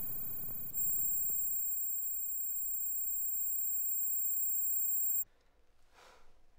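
High-pitched electronic ringing tones standing for tinnitus, the sound of impaired hearing. The tones step up louder about a second in and cut off suddenly about five seconds in.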